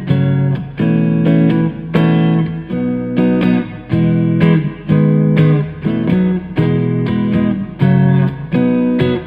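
Electric guitar played through a Blackstar Studio 10 6L6 valve amp with a clean tone, strumming chords in a rhythmic pattern about once or twice a second; a chord is left ringing near the end.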